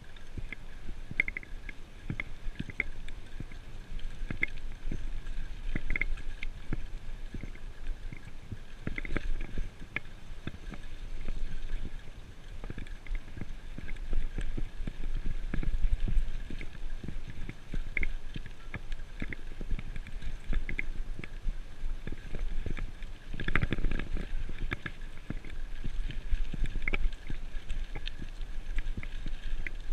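Bicycle rolling along a forest track, heard from a handlebar-mounted action camera: a steady low rumble of tyres and vibration, with frequent clicks and rattles from bumps in the path.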